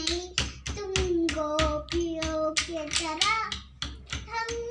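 A child's voice singing a Hindi bhajan, holding long, wavering notes, over a quick, steady run of taps.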